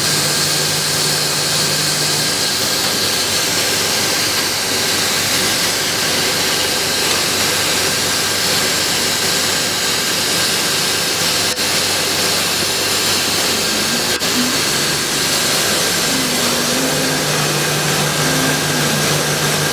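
Flatbed CO2 laser cutting machine running while it cuts acrylic sheet: a steady noise with a low hum that fades after a couple of seconds and comes back near the end, and two faint ticks past the middle.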